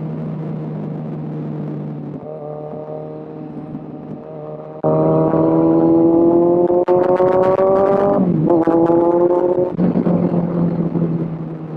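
Kawasaki Z1000 inline-four engine running under way. About five seconds in the throttle opens and the engine note rises steadily for about three seconds. It then dips sharply and picks up again before easing off near the end.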